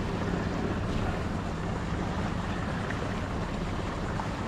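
Steady wind rush and water noise on an open boat: an even, unbroken hiss and rumble with no distinct events.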